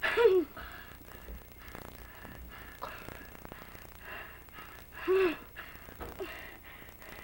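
Domestic cat meowing while being pawed at by hands: a loud meow that falls in pitch right at the start, another about five seconds in, and a short faint one just after it.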